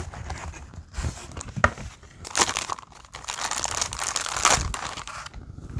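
Plastic packaging bag crinkling and rustling as it is handled and unwrapped by hand. A few light knocks in the first two seconds are followed by about three seconds of dense crinkling.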